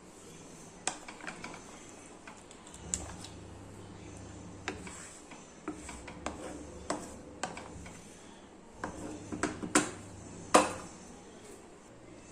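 Kitchen utensils clinking and scraping against a cooking pot in scattered short knocks, the loudest a sharp clank near the end.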